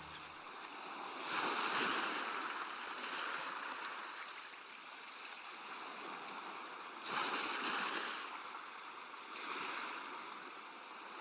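Water rushing and sloshing in an industrial washing machine, swelling louder briefly about a second in and again around seven seconds in.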